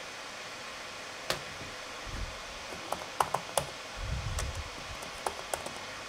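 Dell XPS 15 2-in-1 (9575) laptop cooling fans running with a steady whoosh, spun up under video-editing load. Several sharp clicks and a couple of low thumps sound over it.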